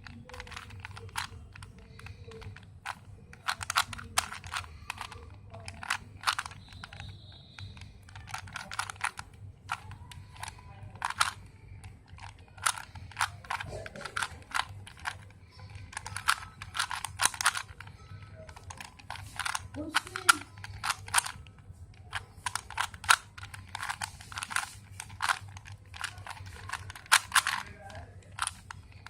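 3x3 Rubik's cube being turned fast by hand: runs of quick plastic clicks as the layers rotate, broken by short pauses between sequences of moves.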